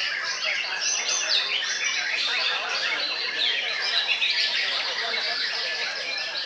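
White-rumped shama (murai batu) singing a continuous, varied song, with other caged contest birds singing over it at the same time.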